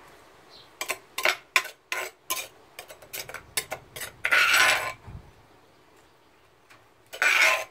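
Metal spoon clinking and scraping against a ceramic bowl as green chili paste is spooned and pressed into it. A quick run of sharp taps comes first, then a longer scrape about four seconds in and another near the end.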